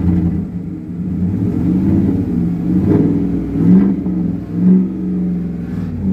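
Chevrolet Silverado 5.3 L V8 running and being revved, rising and falling in pitch with two sharper revs near the middle. The engine is misfiring on cylinder 7, which the owner suspects has lost compression.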